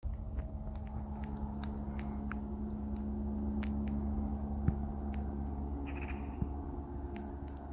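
A distant helicopter's steady low drone, with insects buzzing near the microphone and faint scattered clicks.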